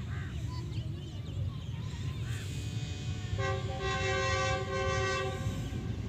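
An approaching train's locomotive horn sounds one long steady chord, starting about halfway through and lasting a little over two seconds, over a steady low rumble.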